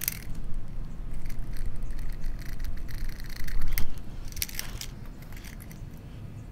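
Irregular scraping and crackling of screen and spline being pressed into a Screen Tight screen track, with the loudest scrapes about four seconds in.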